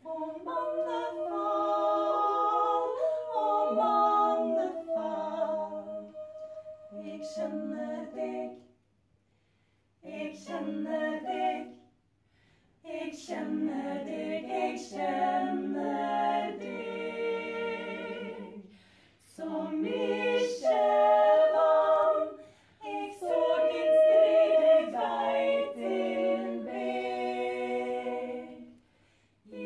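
Several voices singing together unaccompanied, a cappella, in sustained phrases broken by short pauses.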